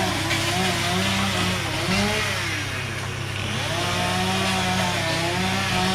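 Gasoline chainsaw cutting through tree wood, its engine revving up and dropping back again and again under load.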